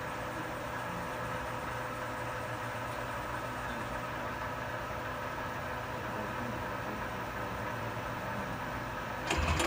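Milltronics ML15 CNC lathe running under power, a steady mechanical hum. Near the end there is a brief, louder mechanical clatter.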